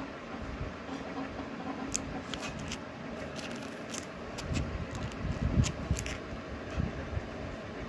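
Clear plastic sleeves and VCD cases crinkling and clicking as they are handled and shuffled, with a louder low bump about five and a half seconds in, over a steady low background rumble.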